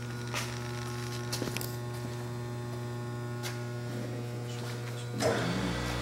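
Acer AGS-1020 AHD surface grinder's 2 HP spindle motor running with a steady, smooth hum. About five seconds in there is a short noise and a deeper hum joins in.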